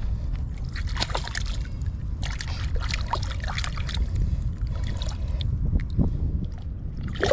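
Shallow lake water sloshing and splashing at the muddy shoreline in several short bursts, over a steady low rumble.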